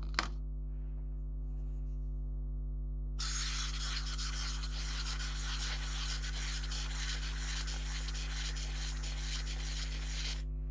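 A short click as the rusty bayonet ring is set into a plastic cup. About three seconds in, an even, finely crackling fizz starts from the foaming white rust-removal soak in the cup and runs until just before the end, over a constant low hum.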